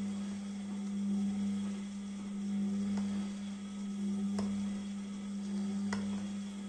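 Beko 6 kg washing machine running its wash cycle: a steady motor hum, with a swishing that repeats about every second and a half as the drum turns. Light knocks come in step with it twice in the second half.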